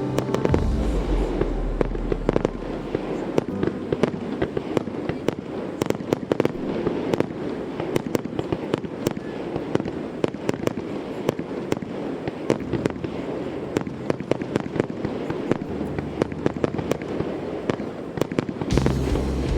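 Aerial fireworks crackling and popping, a dense run of rapid irregular pops and small bangs.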